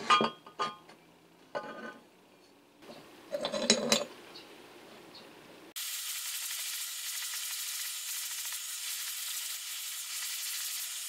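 Aluminium housing parts of a Makita 1800 electric planer clink and knock as they are handled. About halfway through, a steady hiss starts: a spinning bristle wheel brush scouring the caked wood dust off the aluminium bearing housing.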